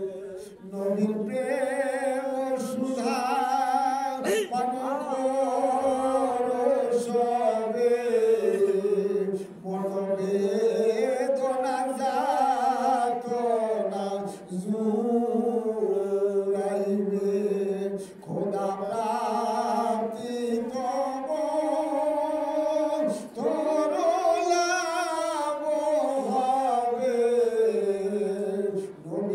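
A man's voice chanting a Sufi devotional call for divine mercy without accompaniment. He sings long, drawn-out, ornamented phrases, with short breaks for breath every few seconds.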